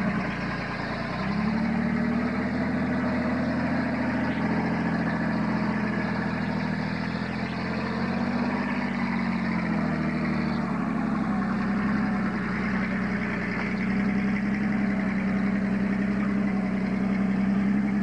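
Engine of a lifted square-body pickup on oversized mud tires running at a steady speed, its pitch stepping up about a second in and easing back briefly later on.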